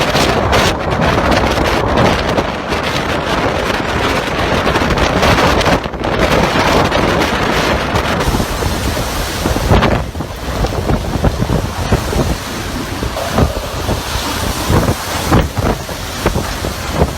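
Typhoon wind blasting and buffeting the microphone, a dense rushing noise that swells and eases in gusts.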